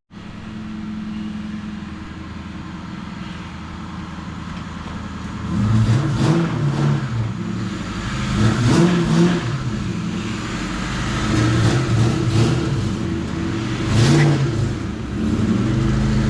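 A vehicle engine running, with a steady hum at first, then rising and falling in repeated revs from about five seconds in.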